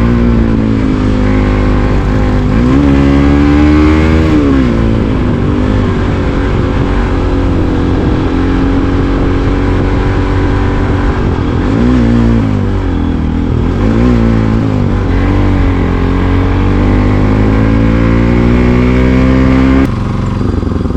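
Motorcycle engine running hard while riding, its pitch rising as it accelerates and dropping back several times. It cuts off abruptly near the end.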